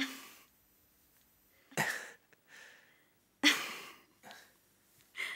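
Four short breathy bursts from a person, each fading within about half a second and coming roughly every one and a half to two seconds, the third the loudest.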